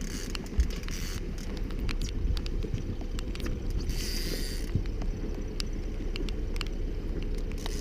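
Boat motor running steadily at trolling speed, with water and wind noise, scattered small clicks and a short burst of hiss about four seconds in.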